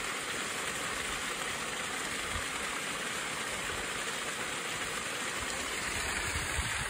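Water from a hose pouring into a pond, a steady rushing splash.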